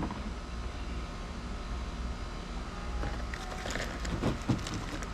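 A few light clicks and taps of small carburetor parts and gaskets being handled, about three to four and a half seconds in, over a steady low background hum.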